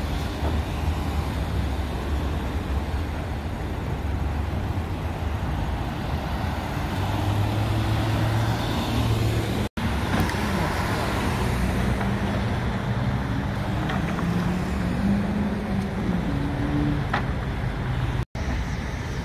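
Road traffic: car and truck engines running and passing, a steady low engine hum with no speech. The sound drops out briefly twice.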